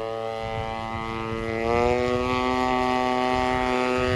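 Engine and propeller of a 1:5 scale radio-controlled Stearman PT-17 model biplane in flight overhead: a steady drone whose pitch rises and which grows louder about a second and a half in.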